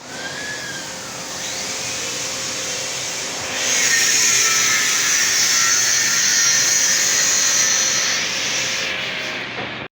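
A workshop power tool running steadily with a hiss. It grows louder about three and a half seconds in and eases off near the end.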